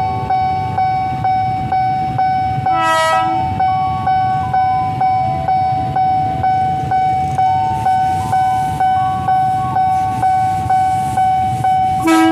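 Level-crossing warning bell ringing steadily about twice a second. A KRL electric commuter train rumbles through, and its horn sounds briefly about three seconds in and again near the end.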